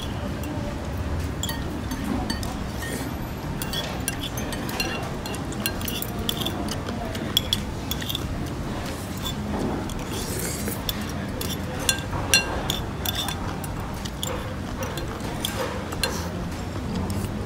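Metal spoon and fork clinking and scraping against a ceramic bowl, with a few sharper clinks, over a steady low background hum.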